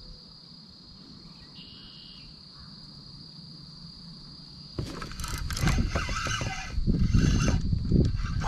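A steady high-pitched chorus of insects, then about five seconds in, louder irregular knocking, rattling and rumbling of a spinning rod and reel being handled as the angler sets the hook on a bite and starts reeling.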